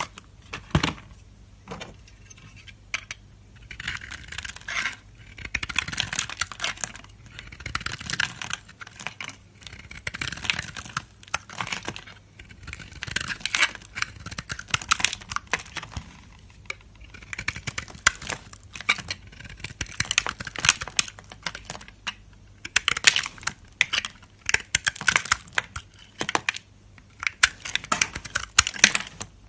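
Knife slicing a bar of soap into small cubes: crisp, crackly clicking that comes in repeated bursts of a second or two as the blade goes through.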